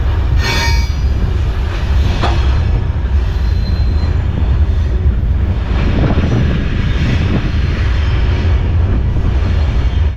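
Mauritanian iron ore train rolling: a loud, steady, heavy rumble of wagons and wheels, with a brief metallic wheel squeal about half a second in and a sharp clank about two seconds in.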